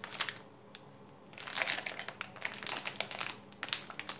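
Foil coffee packet crinkling and crackling as hands turn and squeeze it: a short rustle at the start, a brief pause, then a longer run of crinkling from about a second and a half in, with another burst near the end.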